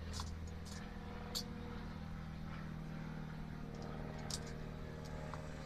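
A few light clicks of a screwdriver and fingers working at the horn-button contacts of a steering wheel, over a steady low hum.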